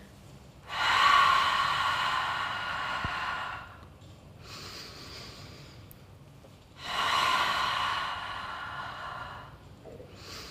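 A woman's deep, sighing exhalations through the mouth: two long out-breaths of about three seconds each, with a faint short in-breath between them. This is paced exercise breathing, exhaling as the arms swing back.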